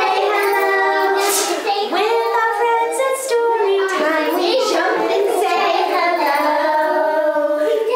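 Young children singing a simple song together, several high voices holding and sliding between notes, with a woman's voice among them.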